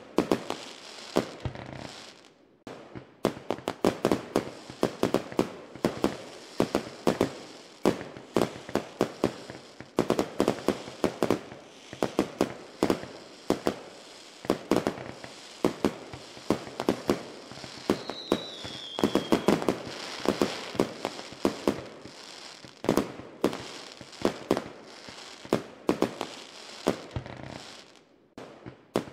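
Fireworks going off in rapid volleys of sharp bangs and crackles, several a second, easing off briefly about two and a half seconds in and again near the end.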